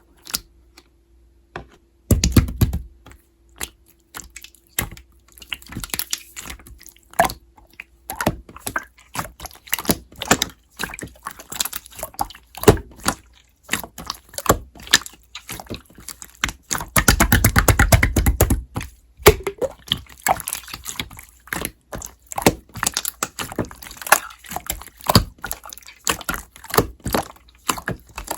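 Slime being squished and pressed by hand, making a quick, irregular run of sticky clicks and pops. It starts about two seconds in and has a denser, louder stretch about two-thirds of the way through.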